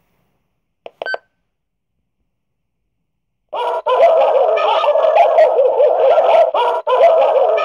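Amseco VSD-208 siren driver sounding its 'furious barking dogs' alarm tone through a siren speaker: a loud, synthetic burst of frantic dog barking that starts suddenly about three and a half seconds in and runs on with a couple of brief dropouts. A short click and beep come about a second in, before the alarm starts.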